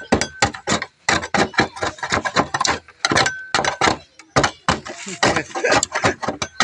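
Metal putty knife chipping and scraping thick body filler off a car's fender: rapid sharp clicks and knocks, several strokes a second, as the blade breaks the hardened filler away from the panel.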